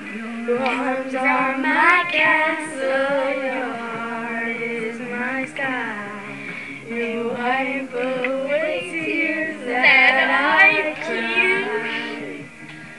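A pop song with a female lead vocal, with young girls singing along.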